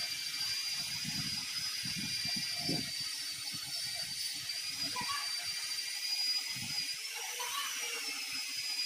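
An electric power tool, drill-like, running steadily with a high whine whose pitch dips and recovers about seven seconds in, with scattered low knocks from the work.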